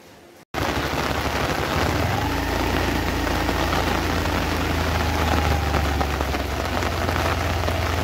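Heavy monsoon rain falling steadily on a concrete road and surroundings, a dense hiss that starts abruptly about half a second in, with a low steady rumble underneath.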